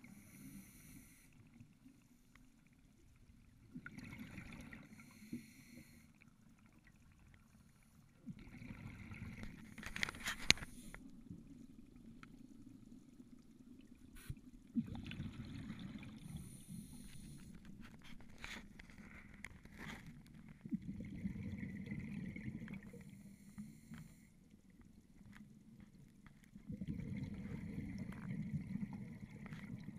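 Scuba diver breathing through a regulator underwater: a hiss on each inhale and a bubbling rumble on each exhale, in a cycle of roughly five to six seconds. A few sharp clicks come about ten seconds in.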